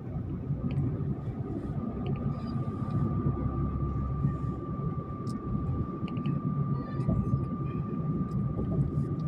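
Steady engine and road rumble from a vehicle driving along a highway, with a thin steady high whine over it.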